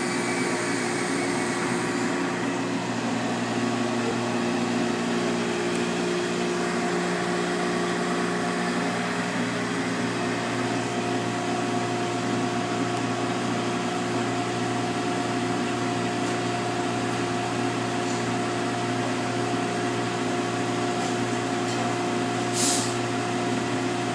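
Sand-blast cabinet equipment running: a steady motor drone with a hum. Near the end comes one short hiss as the blast gun fires 60 grit aluminum oxide abrasive.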